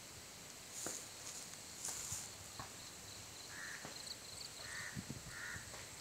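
A crow cawing: three short caws in the second half. The clicks and rubs of a handheld phone being moved sound around them.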